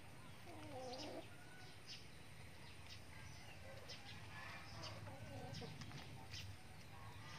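Chickens softly clucking as they peck at feed, with two faint bouts of calls, one about a second in and another past the middle, and scattered short high ticks between them.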